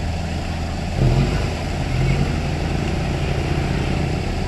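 Engine running steadily with a low rumble, growing louder and rougher about a second in.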